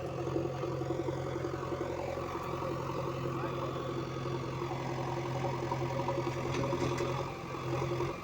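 Diesel engine of a heavy earth-moving machine running steadily at a low, even speed.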